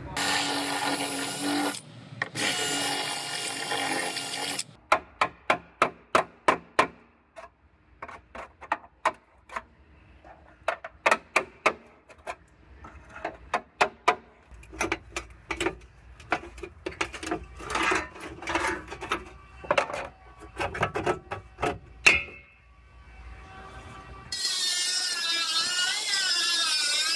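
Body-shop air tools on sheet steel: a loud air tool runs for the first few seconds, then a long run of sharp metal clicks and knocks. Near the end a small pneumatic disc grinder runs against the edge of a new steel trunk floor panel, its pitch wavering under load.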